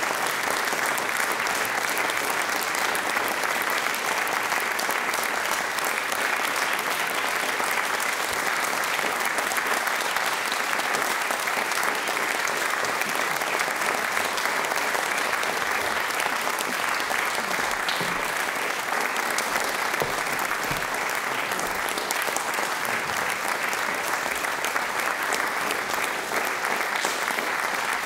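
Concert audience applauding steadily, a dense, even clapping that neither builds nor fades.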